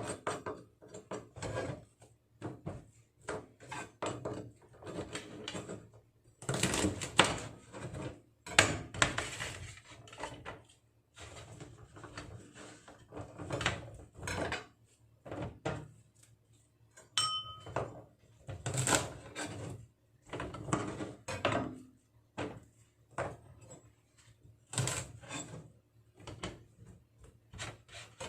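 Knife cutting the woody ends off asparagus spears on a cutting board: irregular chops and knocks on the board, with handling of the spears between cuts. A brief high tone sounds once about seventeen seconds in.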